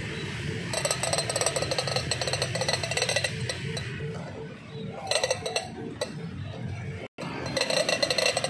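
Rattling clacks from a wheeled toy-chicken push toy (ayam-ayaman) as it is pushed along the ground on its stick, coming in runs of rapid clicks with a lull of about two seconds in the middle.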